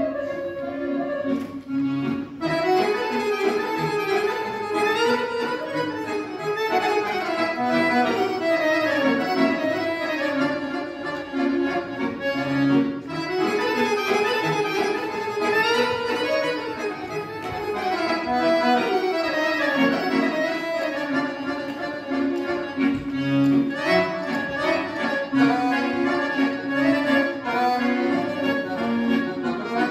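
Solo accordion playing, with melodic runs rising and falling over held lower notes and short breaks in the phrasing about two seconds in and near the middle.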